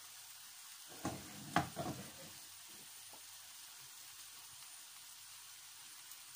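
Onion, potato and tomato masala sizzling steadily in oil in a kadhai, fried through. A few sharp clattering knocks come between about one and two seconds in.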